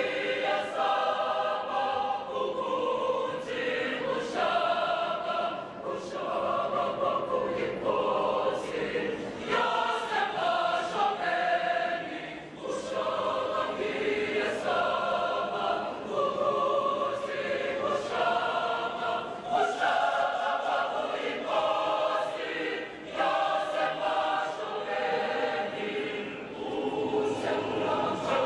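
A mixed school choir of girls' and boys' voices singing in harmony, phrase by phrase, with short dips between phrases.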